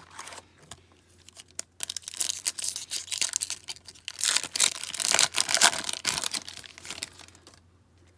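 Trading card pack's foil wrapper being torn open and crinkled by hand, in two stretches of dense crackling about two seconds in and again just after the middle.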